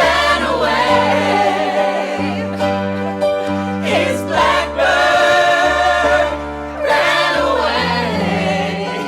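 A group of voices singing a song together over instrumental accompaniment, with long held notes and a bass line that changes every second or so.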